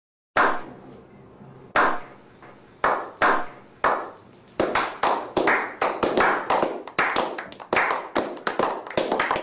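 A slow clap: single hand claps about a second apart, each echoing briefly, then more clappers join and it speeds up into a short round of applause from about four and a half seconds in.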